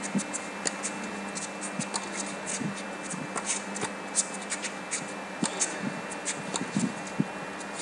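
Tennis rally on a hard court: racket strikes on the ball and ball bounces, with many short, sharp scuffs from the players' shoes over a steady crowd hum.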